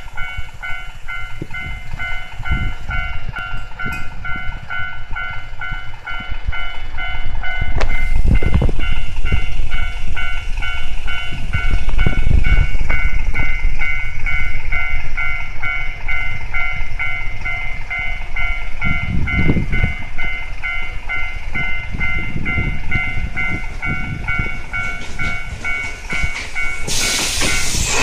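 Japanese railway level-crossing alarm ringing its steady, repeating electronic clang over a fluctuating low rumble. About a second before the end an Enshu Railway electric train sweeps in loudly, its wheels and motors running past the crossing.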